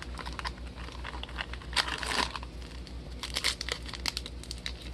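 Foil wrapper of a trading-card pack crinkling and tearing as it is pried open, in irregular bursts with a louder rip about two seconds in; the pack is hard to open, its seal heavily glued.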